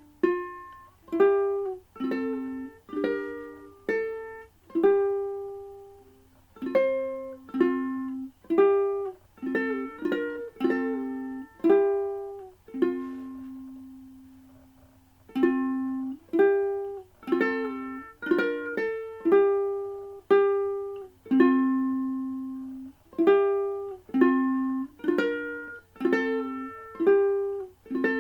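Solo ukulele playing a slow hymn melody with chords, each plucked note ringing out and fading, with one long held note about halfway through.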